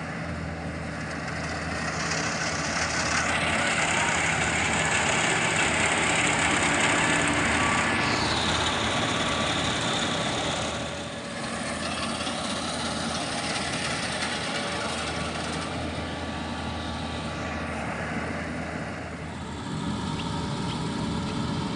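Yanmar combine harvester running: a steady low engine hum under a loud rushing noise from its working machinery, with a high whine that shifts in pitch a couple of times. The sound eases briefly twice.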